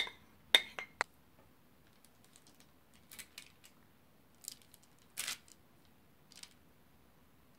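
A few sharp clicks in the first second as melted chocolate is scraped out of a bowl, then faint, sparse scrapes of a knife spreading the chocolate over baking paper, the longest a little past halfway.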